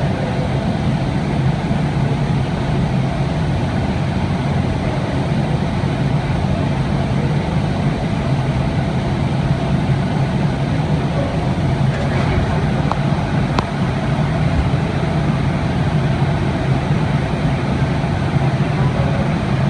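Steady low hum and roar of a glassblowing factory floor: furnaces and their blowers running. A couple of faint clicks come past the middle.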